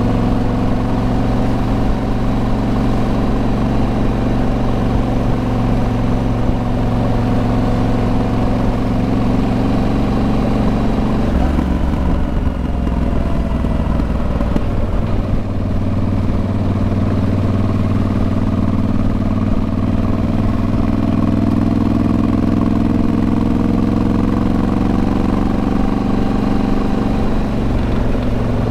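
A vehicle engine running steadily. About eleven seconds in its note changes and drops, then slowly climbs again.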